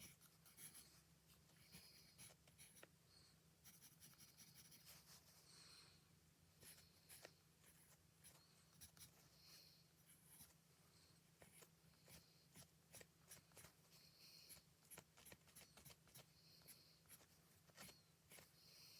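Faint sound of drawing on paper: short scratchy strokes and many quick ticks of the drawing tool, in an irregular stop-and-go rhythm.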